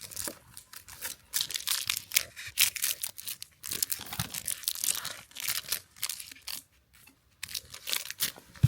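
Crinkling and tearing of the plastic packaging of a new outlet cover plate being worked at by hand, a run of irregular crackles as the package resists opening, with a sharp snap at the very end.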